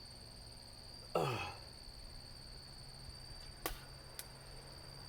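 A man's short throaty vocal sound about a second in, falling in pitch, as he holds back a burp from a stomach full of Diet Coke. Two faint clicks follow near the middle.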